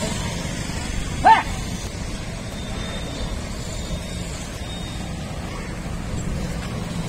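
Steady rumble of road traffic passing close by. About a second in comes one brief, loud, pitched call, the loudest sound in the stretch.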